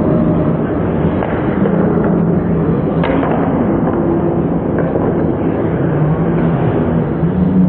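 Ice hockey game sound in a rink: a steady wash of skating and arena noise, with a few sharp clacks of sticks and puck, one about a second in, one near three seconds and one near five.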